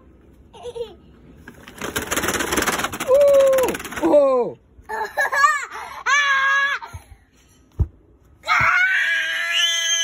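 Young children squealing and laughing in excitement: a run of high-pitched cries that bend up and down, with a long shrill squeal near the end. About two seconds in there is a brief burst of rough noise.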